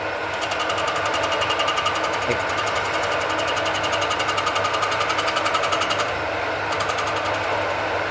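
Tool-post grinder's wheel grinding a shaft spinning in a metal lathe, with both motors running. The grinding comes as a fast, even pulsing of about ten beats a second as the wheel bites on the slightly wobbling shaft, and it stops about six seconds in, leaving the steady hum of the machines.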